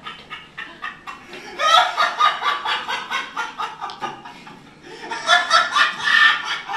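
People laughing in quick pulsing bursts, a loud swell of laughter about two seconds in, dying down, then rising again near the end.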